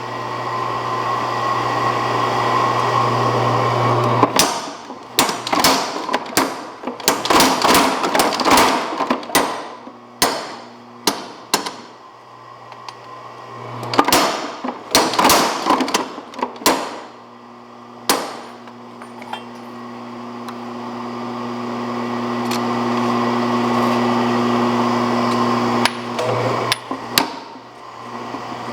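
Little Giant 250 mechanical power hammer running, its motor humming, then striking hot steel in several runs of rapid heavy blows. The blows drive a fullering tool into a square bar at its midpoint to form two cross peens at once.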